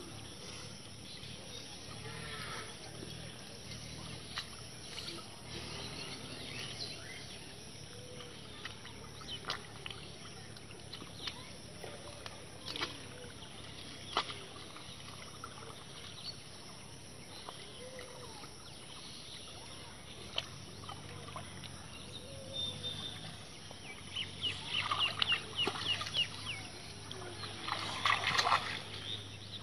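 Quiet rural ambience with faint clucking of chickens and bird calls, and small sloshes of water and mud as hands pack mud around a bamboo fish trap in a flooded paddy channel. It grows louder near the end with splashing of feet wading through shallow water and more chirping.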